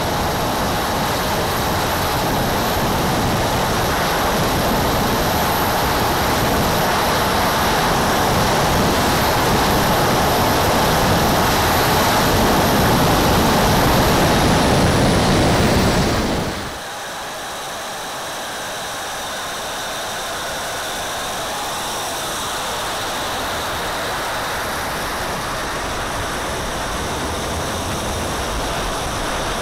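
Four JetsMunt 160 model gas turbines of a 1/5-scale RC Avro Vulcan running at high power, heard from a camera on the airframe: a loud rush of jet noise and air with a high thin whine, growing through the takeoff run and climb. About halfway through the sound drops suddenly to a quieter, thinner jet hiss with higher whistling tones that slowly builds again.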